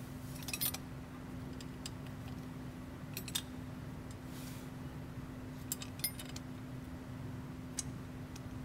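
Small metal clinks of nuts, bolts and clamp hardware being handled as an exhaust pipe is fitted to an APU's exhaust flange: a handful of sharp taps spread over several seconds, over a steady low hum.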